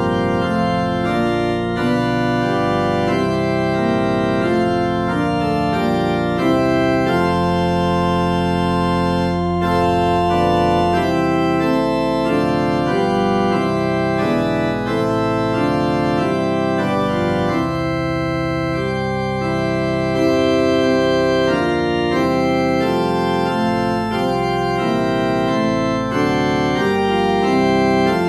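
Instrumental background music played on an organ: sustained chords that change from one to the next.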